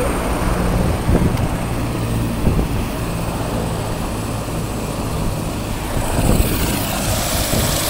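Helicopter running close by: a steady low drone with a thin high whine that grows stronger near the end.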